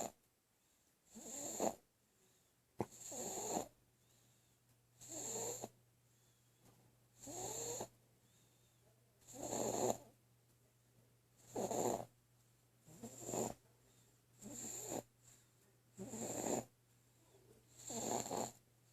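A sleeping baby snoring, a short snore about every two seconds, evenly repeated some ten times.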